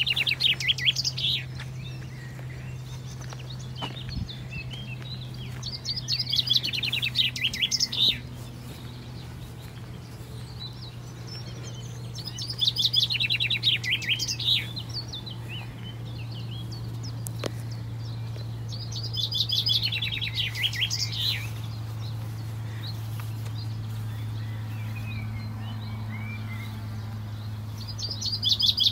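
A songbird singing a short phrase of rapid notes that fall in pitch, repeated about every six or seven seconds, over a steady low hum.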